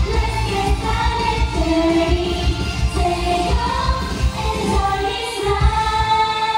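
Thai idol pop: a girl group singing in unison into microphones over an amplified backing track with a strong bass beat, a long held note near the end.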